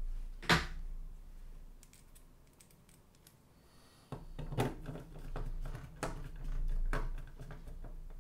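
Small Phillips screwdriver and metal screw being handled and driven into a cassette deck's circuit board. A loud click comes about half a second in; after a quieter stretch, a run of clicks and scrapes starts about four seconds in as the screw is turned in.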